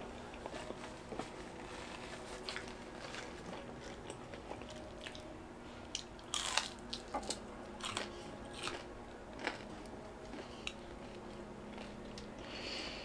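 A person biting into and chewing a piece of fried pizza crust close to the microphone: scattered crisp crunches and mouth clicks, thickest and loudest from about six to ten seconds in.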